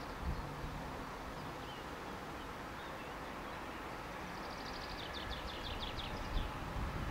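Electric freight train approaching from a distance, a faint low rumble that slowly grows toward the end. A songbird sings a quick run of high repeated notes about five seconds in.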